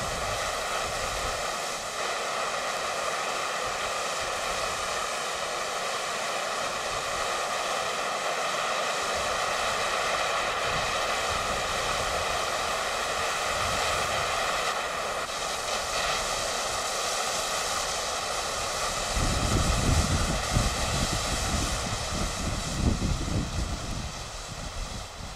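Expired, decades-old red pyrotechnic distress hand flare burning with a steady hiss: it still works. From about 19 seconds in, a low gusty rumble joins the hiss.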